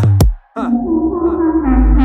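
Electronic hip-hop beat between rapped lines: a drum hit, a brief drop-out, then a sustained, gliding synth melody, with deep bass coming in near the end.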